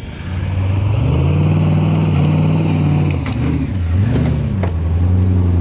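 Engine of an open-top off-road 4x4 running loud and close, revving up about half a second in, easing off and picking up again around three to four seconds in, then holding its revs.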